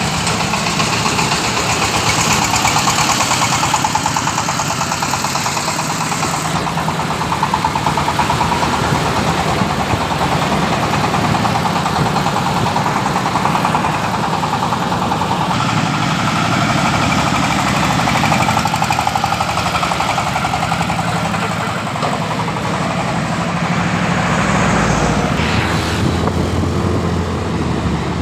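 Engine-driven corn sheller for unhusked corn running steadily, with an engine hum under a dense mechanical rattle.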